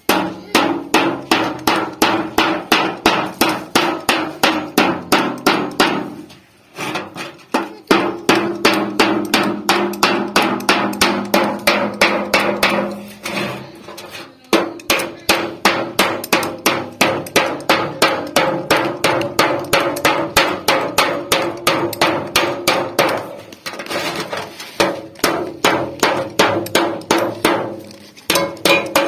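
Hammer beating refrigerator sheet metal, which is being shaped into a pot: rapid, even strikes about three to four a second, each leaving a metallic ring. The runs of blows stop briefly several times.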